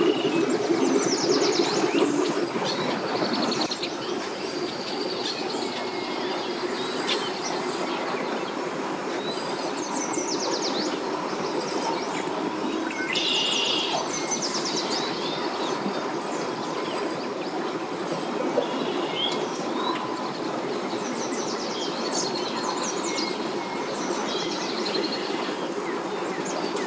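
Birds chirping and calling in short repeated bursts over a steady low rumble that is a little louder in the first few seconds.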